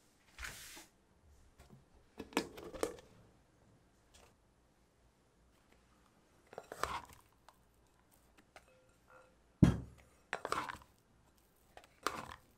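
Food-preparation handling noises: about half a dozen short rustling and scraping bursts, with one sharp knock about ten seconds in that is the loudest sound.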